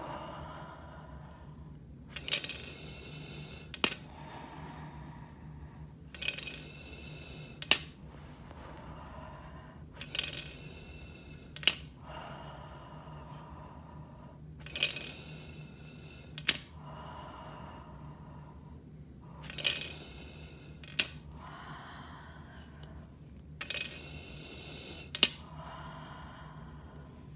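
Repeated deep breaths through the mouthpiece and tube of a Voldyne 2500 incentive spirometer, each a hiss of air with sharp clicks, about one every four to five seconds: post-operative breathing exercises to keep the lungs working after anaesthesia. A low steady hum runs underneath.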